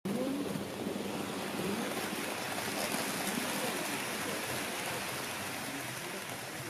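Model train running past close by on the layout track: a steady rushing rumble of wheels and motor on the rails.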